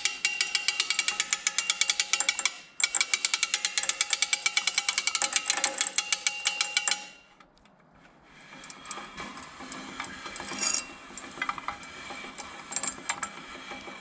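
Rapid, even ratchet clicking, about nine clicks a second, from the Woodland Mills HM122 sawmill's hand-crank head-lift winch as the cutting head is cranked. It pauses briefly about three seconds in and stops about seven seconds in. Quieter metal rubbing and scraping with scattered clicks follows.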